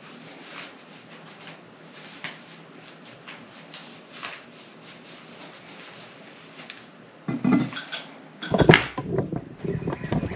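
Faint rustling and small ticks of a handheld phone and clothing moving, then, from about two-thirds of the way in, several loud knocks and bumps of the phone being handled close to the microphone.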